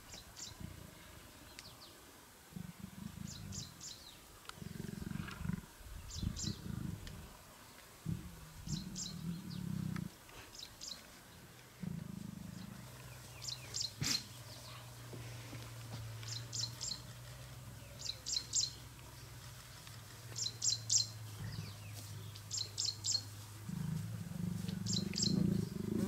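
Lions giving short, low calls again and again, every second or few, growing louder near the end. A bird's short three-note chirp repeats every second or two over them.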